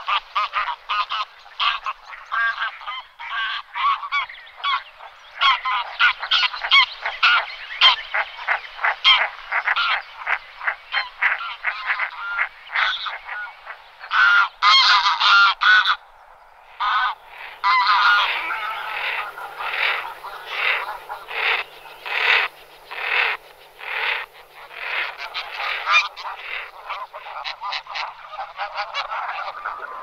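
Many geese calling from a flock: a dense run of short, overlapping honks, with a brief lull about halfway through before the calling picks up again.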